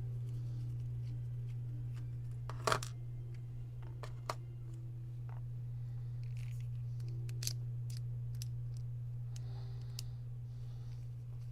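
A few sharp clicks and taps of small parts being handled, one louder double click about three seconds in, over a steady low hum.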